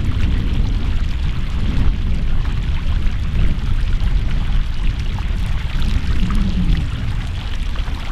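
Wind buffeting the microphone, a steady, fluttering low rumble.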